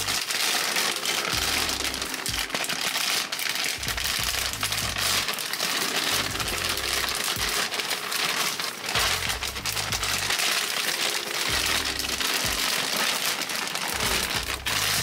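Plastic poly mailer bag and plastic-wrapped clothing crinkling and rustling as the package is torn open and the contents pulled out, over background music with a steady bass line.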